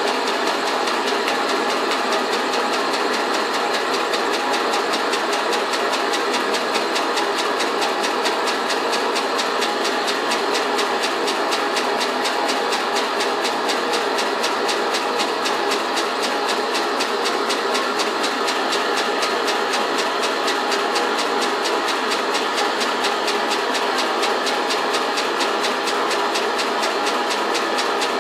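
Small homemade steam engine, cast from melted aluminium cans, running steadily on steam: a rapid, even clatter of beats over a steady hiss. Its spool valve is leaking a lot of steam.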